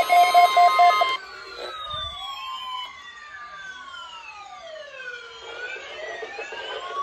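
For about the first second, a loud steady 1050 Hz weather-radio alert tone sounds with a pulsing beep over it, then cuts off suddenly. A quieter electronic siren follows, its slow rising and falling wails crossing each other.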